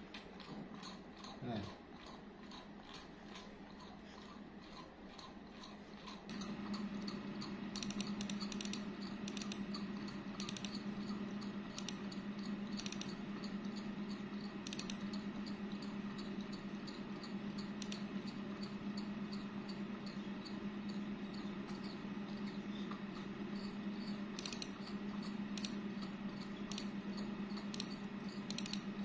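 Desktop computer fans humming steadily, louder after about six seconds, with light scattered clicks of a keyboard and mouse.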